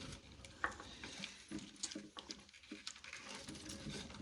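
Faint, scattered clicks and light rustling from hands handling the wiring and parts of a go-kart.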